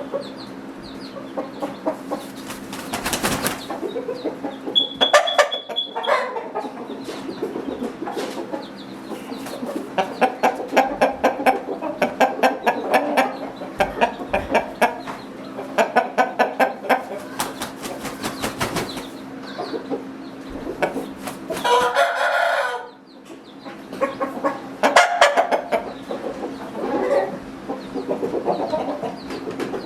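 Chickens clucking in rapid runs of short calls, with roosters crowing.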